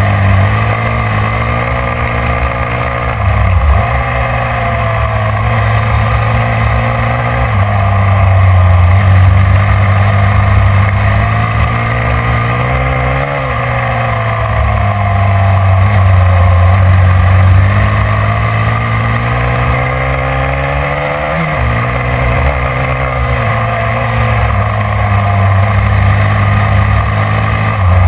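Snowmobile engine running hard on a trail, its pitch rising and falling several times as the throttle opens and eases, over a steady rushing noise.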